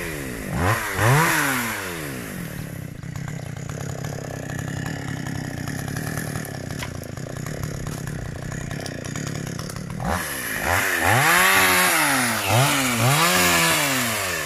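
Chainsaw engine revved up and down several times, its pitch rising and falling with each blip of the throttle. It settles to a steady idle from about two seconds in, then is revved repeatedly again from about ten seconds in.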